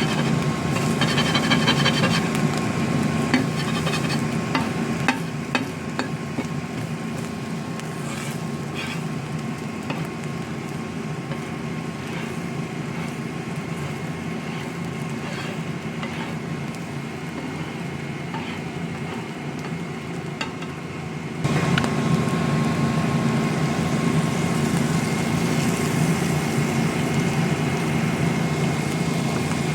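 Food sizzling in a frying pan, with a utensil stirring and clicking against the pan now and then. Over a steady hum, the sound jumps abruptly louder about 21 seconds in.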